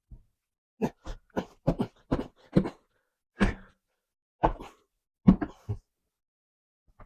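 Street-bike tyre being pried off its rim with tire spoons: a run of about a dozen short, irregular squeaks and knocks as the rubber bead is forced over the rim.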